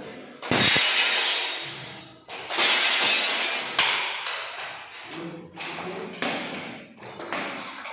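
Large fixed glass pane being handled and set into its aluminium frame: two loud crashing, ringing knocks about two seconds apart, each dying away slowly, then lighter knocks.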